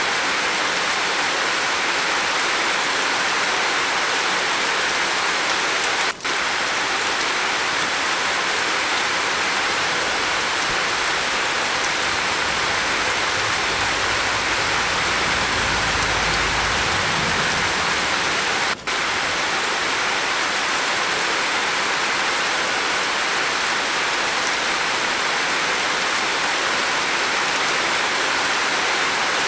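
Heavy rain falling on a roof, a steady dense hiss. A low rumble swells and fades in the middle, and the sound cuts out for an instant twice.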